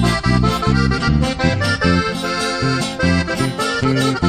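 Instrumental break of a Mexican regional song: an accordion plays a quick melody over a bass line that changes note every fraction of a second.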